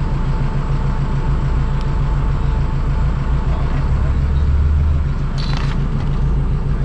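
Motor vehicle engine running with a steady low rumble, and a short hiss about five seconds in.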